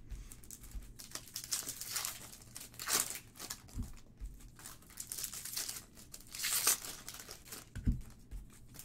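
Foil trading-card pack wrappers crinkling and cards rustling as they are handled and sorted by hand, in irregular bursts, loudest about three seconds in and again near the end.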